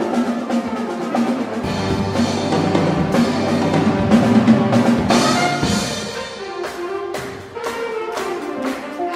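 Big-band jazz ensemble playing, with brass section and drum kit at full strength. It drops back to a lighter passage with crisp, regular drum hits in the second half.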